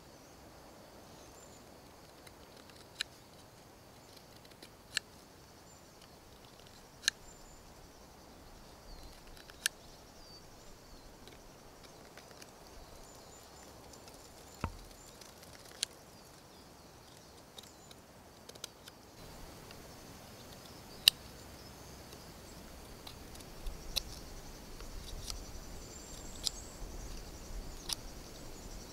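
Knife whittling a small wooden fork, single crisp cuts as the blade works between the tines, spaced a couple of seconds apart and irregular.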